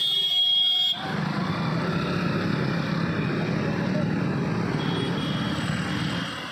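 Motorcycle and scooter engines running as the bikes wade through a flooded road, with a steady rumble and a hiss of water. A high steady tone sounds through the first second and then stops abruptly.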